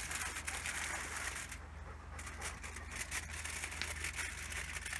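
Tin foil crinkling and rustling under hand as fish fillets are laid out flat on it, steady for about a second and a half, then a short pause and scattered light crackles.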